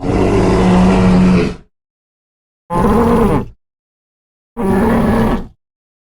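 Three made-up Torosaurus dinosaur calls with silence between them: a longer low call of about a second and a half, then two shorter ones of about a second each.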